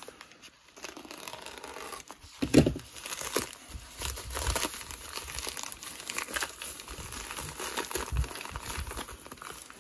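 A blue plastic bubble mailer crinkling and tearing as it is pulled open by hand. One loud sharp burst comes about two and a half seconds in.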